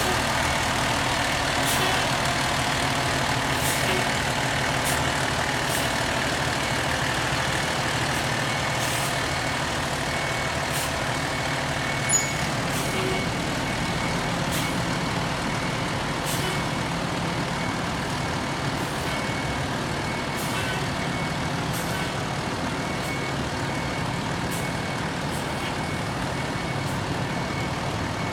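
Ladder fire truck's engine running as it reverses slowly, with its backup alarm beeping. A single sharp sound stands out about twelve seconds in.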